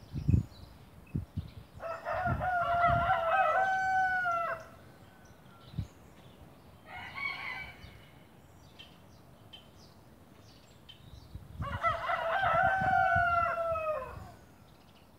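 A rooster crowing twice, each crow a long call of about three seconds that drops in pitch at its end; the first comes about two seconds in and the second about twelve seconds in. A fainter call comes in between, with scattered low knocks throughout.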